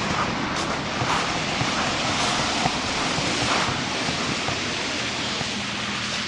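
Steady rushing outdoor noise: wind on the microphone mixed with passing road traffic.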